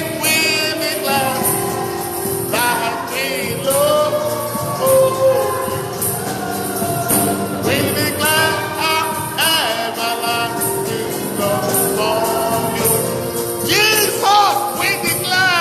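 Gospel worship song: voices singing over instrumental accompaniment, with a steady, high jingling beat.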